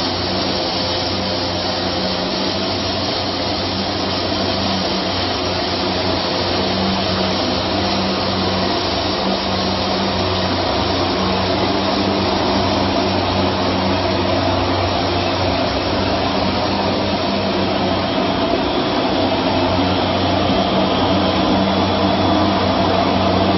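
Aluminium alloy welding wire drawing machinery running: a steady mechanical whir over a low hum, growing slowly louder.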